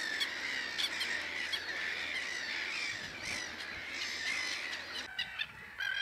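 Dense chorus of many overlapping bird calls from a nesting colony of white-faced ibises, squawking calls over a steady background din.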